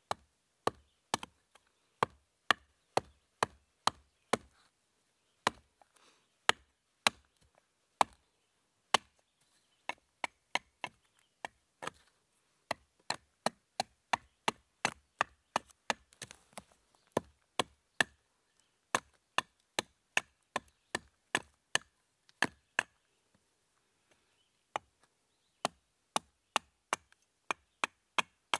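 Hatchet chopping a short log section held on a fallen log, hewing out a spoon blank: a long series of sharp blows, roughly two a second, in runs broken by brief pauses.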